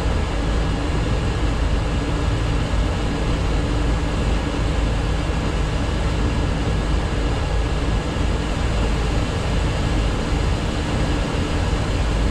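Steady flight-deck noise of a Boeing 737-800 on approach to land: an even rush of air with a low hum underneath and a few faint steady tones, unchanging throughout.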